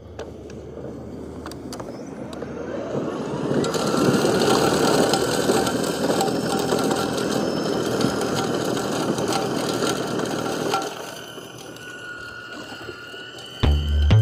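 EGO battery-powered two-stage snowblower running and churning through snow: a steady rush with a thin motor whine. The rush builds over the first few seconds and eases about eleven seconds in. A loud low hum starts abruptly near the end.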